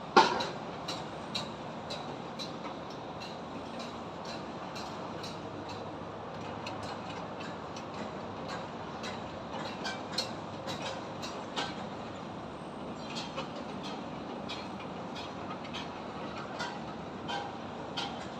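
High-rise construction site ambience: sharp, irregular metallic knocks and taps, the loudest right at the start, over a steady hum of distant traffic.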